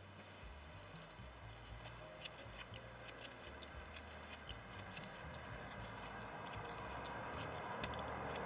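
Faint small clicks and rustling from hands working a plastic tatting shuttle and fine thread while tying double stitches, growing slightly louder toward the end.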